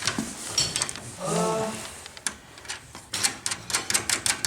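Sharp clicks and knocks of sluice-box parts being handled and fitted together, ending in a quick run of clicks over the last second and a half.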